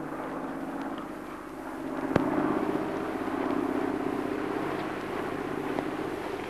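Propeller aircraft engines droning overhead, swelling about two seconds in as the plane passes. A single sharp click comes just after the swell begins.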